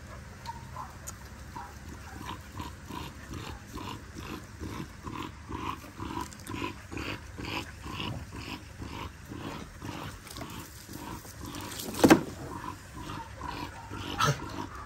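Dogs play-growling while they wrestle: an even run of short growly grunts, about two to three a second. A sharp knock about twelve seconds in is the loudest sound, with a smaller one near the end.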